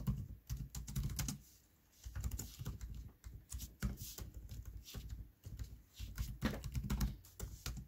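Typing on a computer keyboard: a run of irregular keystrokes, with a short pause about a second and a half in.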